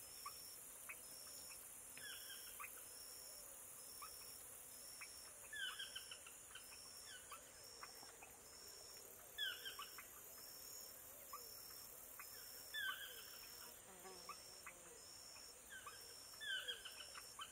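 Faint marsh sounds: a bird gives short phrases of quick descending chirps every few seconds, over an insect's steady high pulsing, about once a second.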